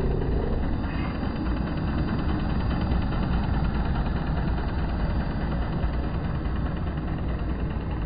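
Shark AI VacMop robot vacuum running as it mops a hardwood floor: a steady motor hum with its suction set to eco.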